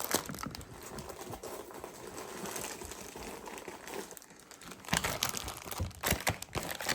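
Sealed plastic figure packs crinkling as they are handled, with a few sharper crackles near the end.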